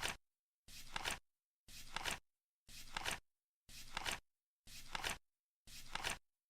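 Flip clock turning over a number flap once a second: each turn is a short brushing sound ending in a sharp double click.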